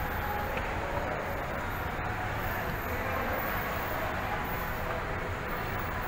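Escalator running while being ridden: a steady mechanical rumble from the moving steps and drive, even in level throughout.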